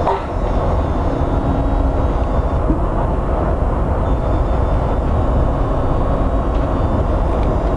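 WMATA Metro railcar running at speed, heard from inside the car: a steady rumble of wheels on rail, with a faint steady tone that comes and goes.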